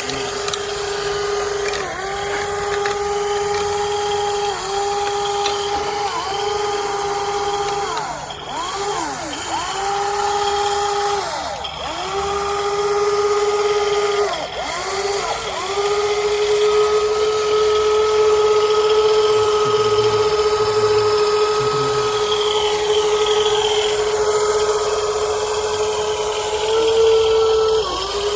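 Electric motors of an RC metal excavator whining steadily at one pitch. In the first half the pitch sags and recovers several times, then it holds steady.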